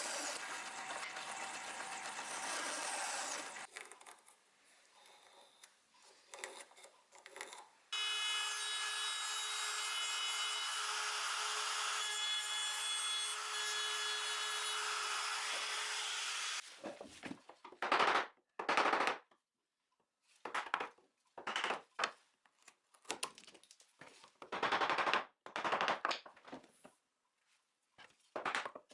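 Power tools working wood: a steady run, then a tool with a steady motor whine, then a series of short, sharp rasping strokes about half a second long, each cut off into silence.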